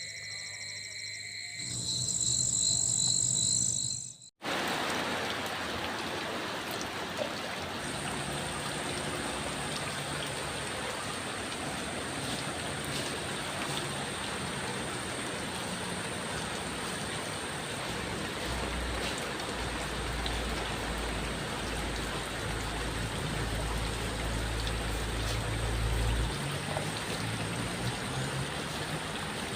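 Heavy rain falling steadily, cutting in suddenly about four seconds in after a few seconds of other tonal sounds. A low rumble swells under the rain between about 19 and 26 seconds.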